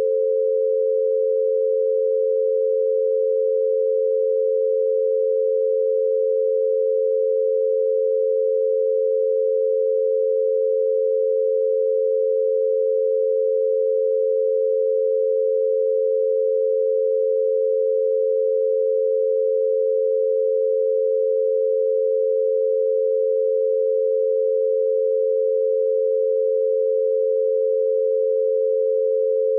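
An 88 Hz binaural beat: two steady pure tones close in pitch, held without any change.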